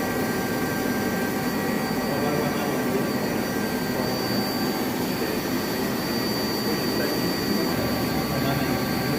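Femco HL-15B CNC lathe running: a steady whir with several thin, constant high-pitched whines over it.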